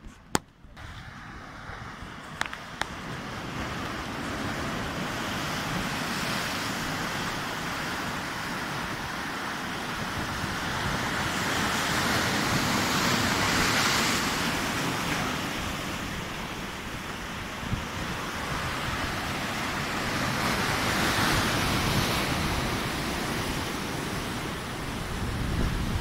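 Sea surf washing against rocks and the base of a stone sea wall, a steady rush that swells in two broad surges, about halfway through and again later, with wind buffeting the microphone. A few sharp clicks near the start.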